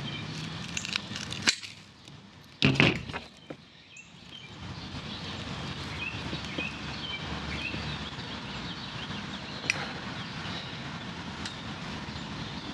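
A few sharp clicks, then a short, loud snip about three seconds in as a cutter trims about 1/8 inch off the end. Steady outdoor background with faint bird chirps.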